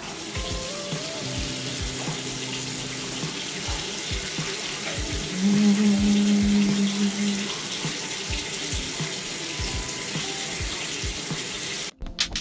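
Sink tap running steadily as an even hiss of water, with a low steady hum that swells for about two seconds midway. The sound cuts off abruptly near the end.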